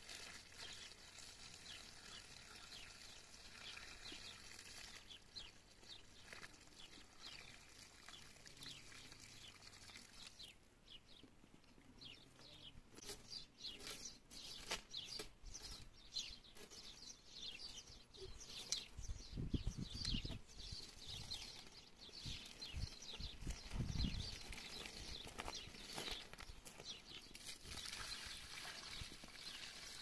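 Faint outdoor ambience with birds chirping repeatedly in short, quick notes, growing busier about halfway through. A few low rumbles come in about two-thirds of the way through.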